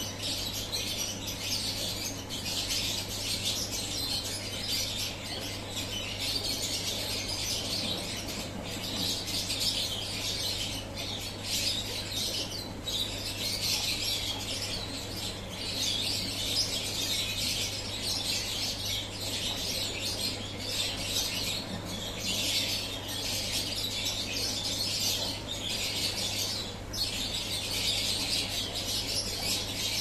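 Many small birds chirping continuously in a dense, overlapping chorus, over a steady low hum.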